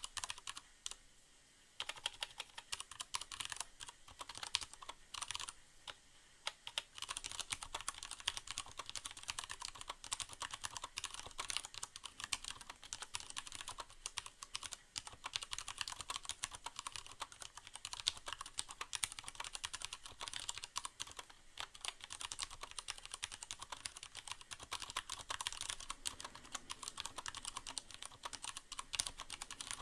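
Typing on a Leopold FC750R mechanical keyboard with Cherry MX Brown switches: a steady run of keystrokes, many a second, with a short pause near the start.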